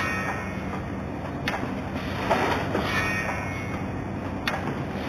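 Automatic aluminium hinge cutting and drilling machine running through its cycle. A sharp metallic clack sounds about every three seconds, and rushing, hissy swells come in between, over a steady machine hum.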